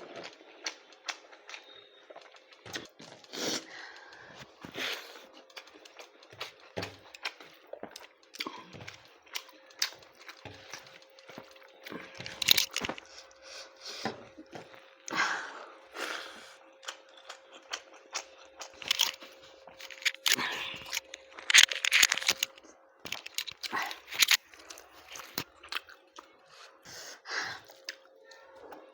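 Close-up eating sounds: a person chewing and smacking on cooked goat lung and rice, with irregular clicks and crunches, loudest around the middle and about two-thirds of the way in. A faint steady hum runs underneath.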